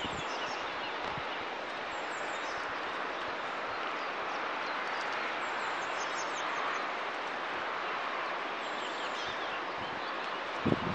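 Steady outdoor hiss with faint, high chirps of small songbirds now and then, and one short low thump at the very end.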